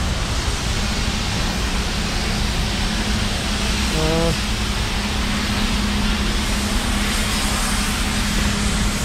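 Wind rushing and buffeting over the microphone of a moving camera, with a steady low hum coming in about a second in.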